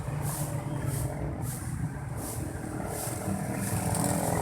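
Motor vehicle engine running steadily, with a low rumble. Faint high hissing pulses repeat about every two-thirds of a second.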